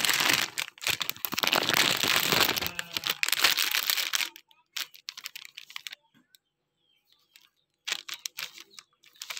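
Clear plastic packaging crinkling and crackling as a mesh laundry wash bag is handled in and out of it. The crinkling is loud and continuous for about four seconds, then drops to scattered small crackles, goes quiet, and picks up again near the end.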